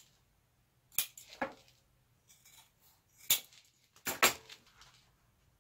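A few sharp clicks and snaps with soft rustling as pieces of eco-leather upholstery material are picked up and handled at the sewing table, the loudest two about a third of the way in and near the end; the sewing machine is not running.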